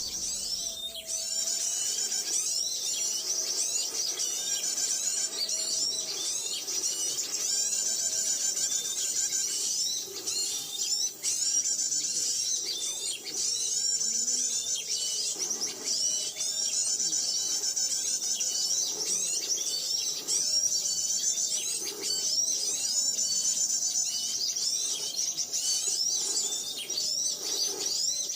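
Dense, continuous high-pitched chirping and twittering of many small birds, rapid overlapping calls, over faint background music.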